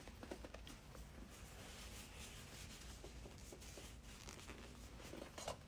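Near silence: quiet room tone with faint, soft scratching and light ticks.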